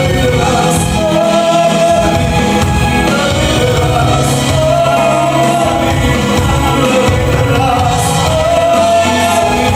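Worship music: a congregation or worship team singing slow, held notes over full band accompaniment.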